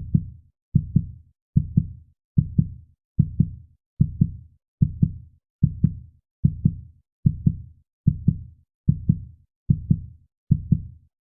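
Heartbeat sound effect: a steady lub-dub double thud repeating about 73 times a minute, stopping abruptly near the end.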